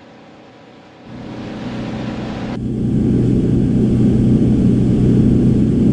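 Boat underway: the outboard engine drones steadily, mixed with rushing wind and water. It comes in about a second in and grows louder, and the high hiss cuts off sharply about two and a half seconds in.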